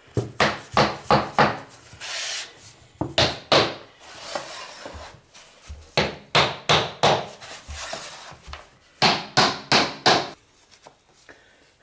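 Hammer knocking laminate floorboards tight into their locking joints: runs of several quick, sharp wooden knocks, with a scraping sound between runs.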